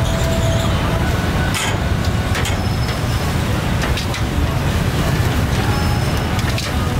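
Steady low rumble of street traffic, with scattered sharp metal clicks of tongs against the grill grate about once a second.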